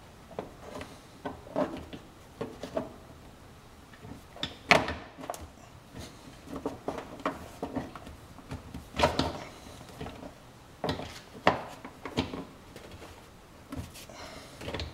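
Hard plastic parts being handled and pressed into place by hand at a car's wheel well: scattered clicks, knocks and scrapes, with the sharpest knock about five seconds in and others near nine and eleven seconds.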